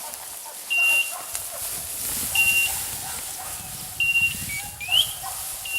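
A bird dog's beeper collar sounding a short, steady beep about every second and a half to two seconds, the repeating signal that the dog is on point. Through the middle there is the rustle of walking through cover, and near the end a short rising squeak.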